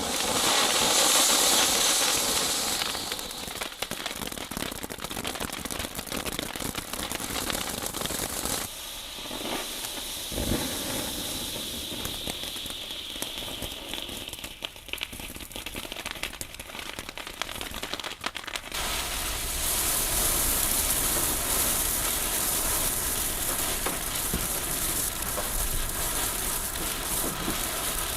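Category 1 firework fountains spraying sparks with a continuous hissing crackle. The sound changes abruptly at about 3, 9 and 19 seconds, as one fountain gives way to another.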